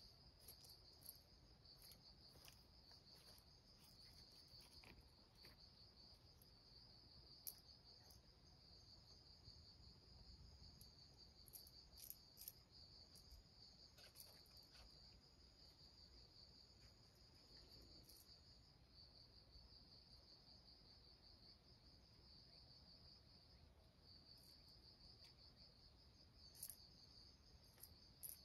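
Faint, steady, high-pitched trilling of insects, with a few soft clicks scattered through.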